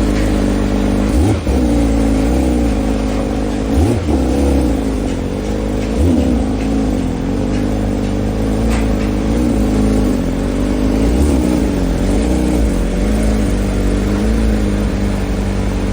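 Porsche engine and exhaust running steadily, the pitch rising briefly in short revs about a second in, near four seconds and near six seconds.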